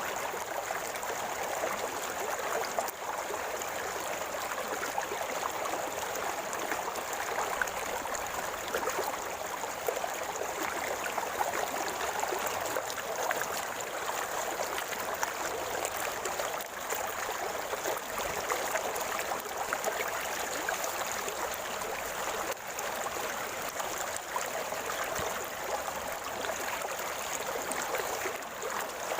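River water flowing and gurgling steadily, an even rush with no pauses.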